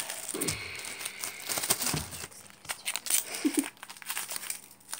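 Crinkling and rustling handling noise with many irregular sharp clicks and knocks.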